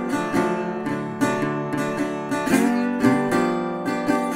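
Intro music on acoustic guitar, strummed and plucked chords at an even pace.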